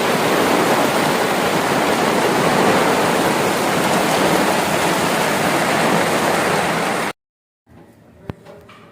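A steady, loud rushing noise with no pitch to it, which cuts off abruptly about seven seconds in; after a short gap, a much quieter background with a single sharp click.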